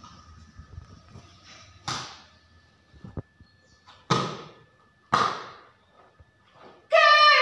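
Karate kata performed barefoot in a gi: three sharp whooshes with the strikes, about two, four and five seconds in, then a loud high-pitched kiai shout near the end.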